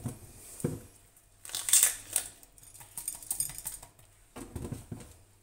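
Fresh green peppers crunching and crackling in several short bursts as their stems and seed cores are pushed in and pulled out by hand, with a few dull knocks against a stainless steel bowl.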